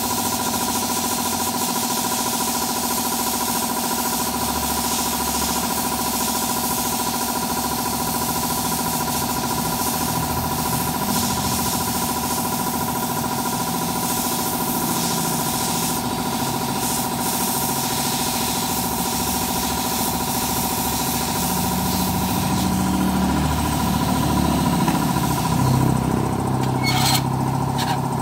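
A small motor running with a steady, unchanging hum and a high hiss. A lower, uneven rumble joins over the last several seconds.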